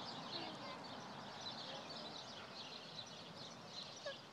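Many small birds chirping continuously, a dense scatter of short high-pitched chirps over faint outdoor background noise.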